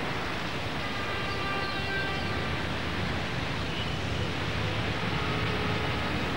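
Street traffic: bus and truck engines running with a steady low rumble under an even hiss.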